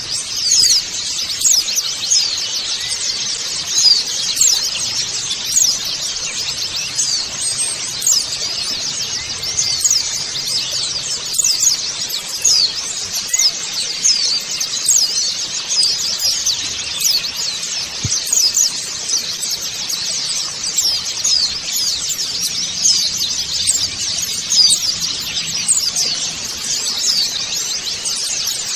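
A flock of white-eyes (pleci) chattering together: many quick, high-pitched chirps and twitters overlapping without pause.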